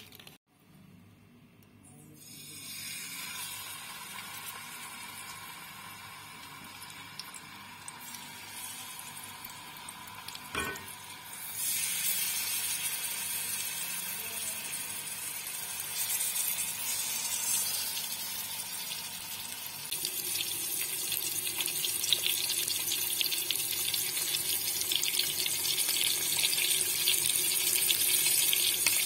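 Quail frying in hot oil in a pressure-cooker pot, a steady sizzle that builds as the oil heats. A short knock comes about a third of the way in, after which the sizzle turns much louder as the birds fry, and it grows louder again about two-thirds through.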